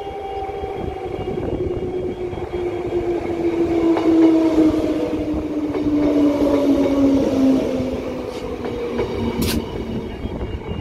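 Transperth A-series electric train pulling into the station past the microphone: its motor whine falls steadily in pitch as it slows, over the rumble of wheels on the rails. A single sharp click comes near the end.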